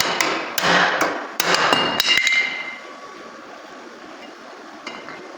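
Hammer blows on a laser-welded stainless steel butt joint, testing how firmly the weld holds. About six sharp strikes come in the first two seconds, ending in a brief metallic ring.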